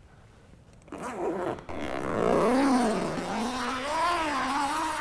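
The fastening along a rolled rooftop awning's cover being pulled open by hand: a long rasping buzz that starts about a second in and wavers up and down in pitch with the pull.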